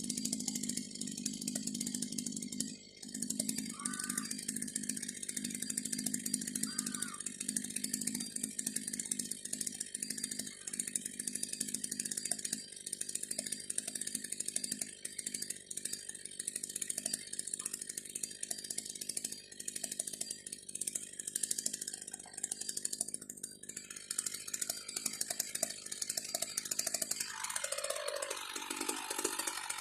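Chainsaw on a homemade Alaska-style mill running steadily as it rips a log into boards. Near the end its pitch drops sharply, then climbs again.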